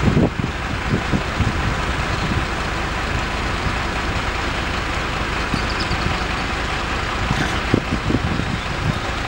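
Steady rushing noise with irregular low thumps of wind buffeting the microphone, strongest in the first second and again near the end.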